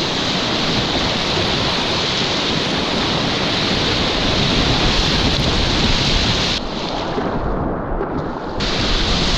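Whitewater of the Upper Youghiogheny River rapids rushing and churning close to the microphone while a kayak runs the rapid. The sound turns muffled for about two seconds near the end.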